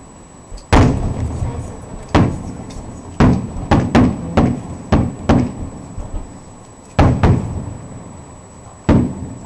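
Aerial firework shells bursting: a string of about eleven loud bangs at uneven intervals, several in quick succession in the middle, each followed by a short echoing rumble.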